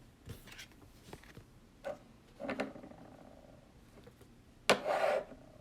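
Trading cards being handled and flipped through: soft clicks and slides, with a louder brief rustle near the end.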